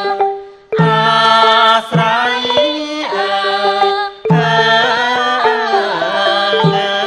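Traditional Khmer court dance music of the pinpeat kind: a long-held, wavering melody line over drum strokes. The melody breaks off briefly just under a second in and again around four seconds in.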